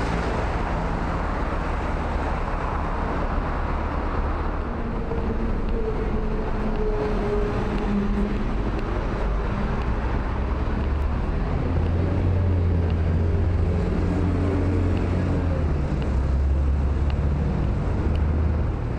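Steady city traffic on a multi-lane road: cars passing, with a heavier vehicle's low engine rumble growing louder about twelve seconds in.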